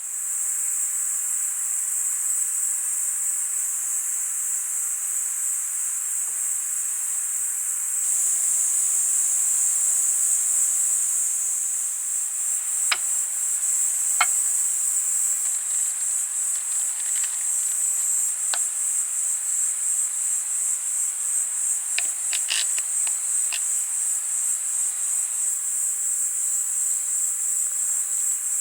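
A steady, high-pitched insect chorus, like crickets chirping, with a few sharp clicks or taps about halfway through and again later.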